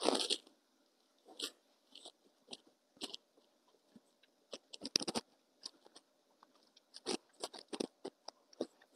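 Plastic heart-shaped cookie cutter pressed through soft dough onto a floured wooden board, with the cut hearts set down on the board. It makes a faint, irregular series of short taps and light crunches.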